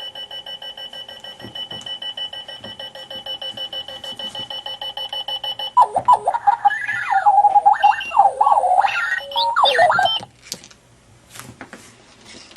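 Clocky rolling alarm clock sounding its alarm: fast, evenly repeated electronic beeping at a steady pitch, then about six seconds in, louder warbling chirps that glide up and down. The alarm stops suddenly about ten seconds in, leaving a few faint clicks and knocks.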